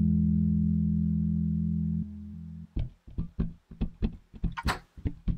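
A held bass-and-guitar chord of background music rings out and stops about two seconds in. Then come a run of sharp, irregular plastic clicks and knocks as a LEGO model is handled and turned on a table, with a short rustle partway through.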